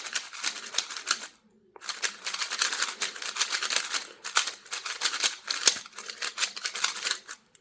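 A HuDongCube Light 3x3 magnetic speedcube being turned rapidly by hand: fast clicking and clacking of plastic pieces, with a brief pause about a second and a half in. The cube is unlubricated and dry.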